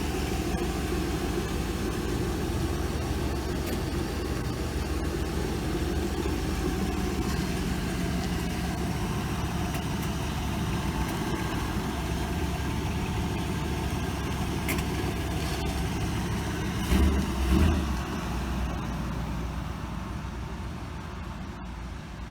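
A motor vehicle engine running steadily, with two brief louder surges about seventeen seconds in. It fades off toward the end.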